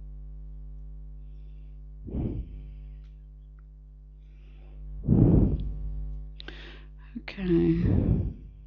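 A steady low electrical hum under several short breathy noises close to the microphone, the loudest about five seconds in and another near the end, with a couple of faint clicks between them.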